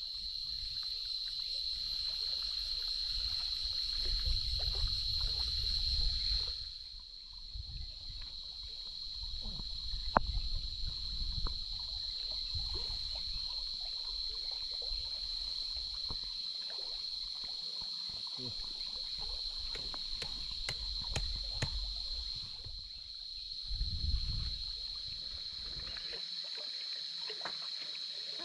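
Forest stream water running, under a steady high-pitched drone from insects, with low rumbles on the microphone that come and go and a scattered run of sharp clicks in the middle.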